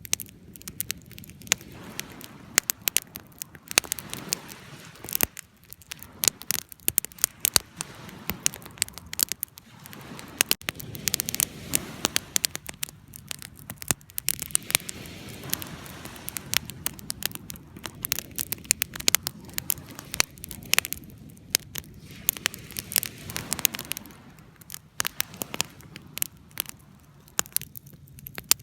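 Fire crackling: irregular sharp pops and snaps over a steady low rush of flame.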